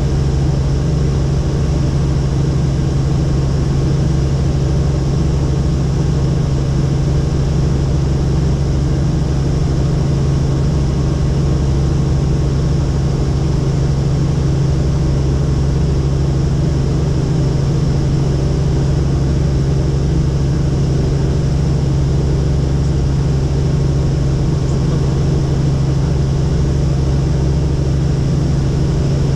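Helicopter in flight, heard from on board: a loud, steady drone of rotor and engine with a strong low hum that does not change.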